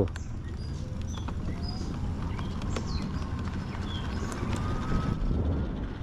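Wind rushing over the microphone of a fast-moving electric bike, with a faint whine from its QS205 hub motor rising slowly in pitch as the bike accelerates.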